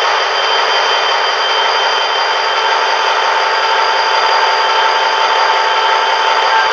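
The onboard sound of an HO-scale Athearn Genesis GP40-2L model diesel locomotive playing its diesel engine sound through a small speaker as the model is given power and moves off. It is a steady, thin, noisy engine sound with steady high whining tones.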